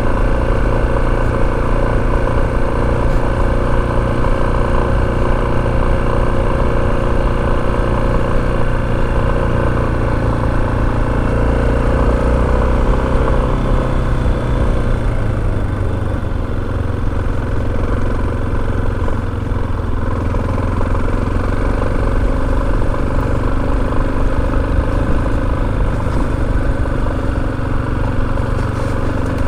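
Motorcycle engine running steadily while riding, its note dropping and shifting about halfway through.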